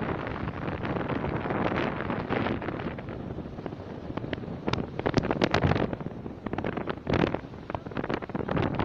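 Wind buffeting the microphone in gusts, loudest a little past halfway, over the rush of sea waves breaking on a rock breakwater.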